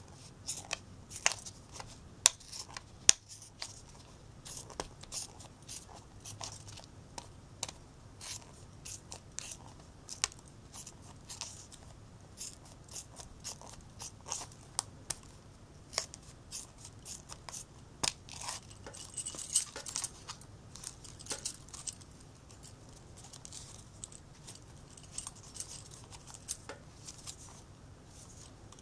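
Scissors snipping through the rim of a thin plastic container lid, trimming it into a ring: irregular short snips, one or two a second.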